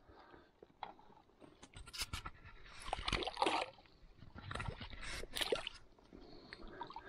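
A small trout splashing in shallow lake water as it comes off a spinner and is released. There are several short splashes with clicks, loudest about two, three and five seconds in.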